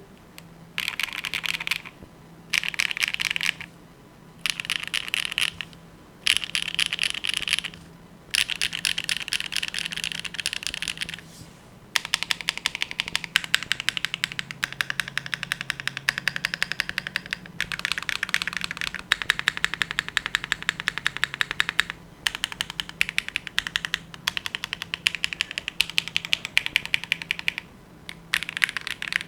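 Typing on a TKD Cycle 8 mechanical keyboard with HMX Catmint switches, an aluminium plate, case foam and DCX Hyperfuse double-shot ABS keycaps. Rapid keystrokes come in short bursts with brief pauses, then run as near-continuous fast typing from about twelve seconds in.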